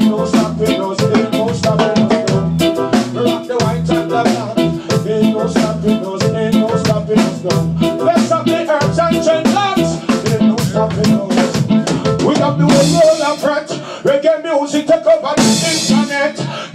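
Live reggae music played loud: a steady drum beat over a heavy bass line. The bass drops away about three-quarters of the way through, with bright noisy hits near the end.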